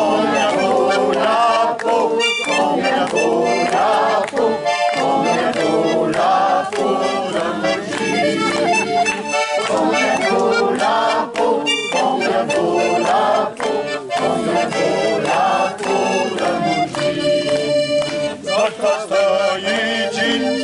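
Instrumental music played live: a continuous tune of many notes and full chords.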